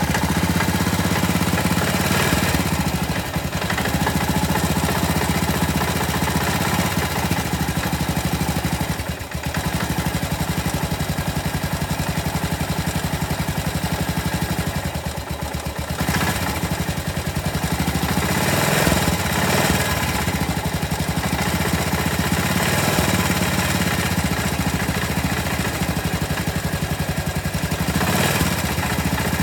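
Yamaha SR500 single-cylinder four-stroke engine idling just after starting, a fast, even train of firing pulses with a knocking character, dipping briefly a couple of times. The engine is making a noise its owner finds suspect.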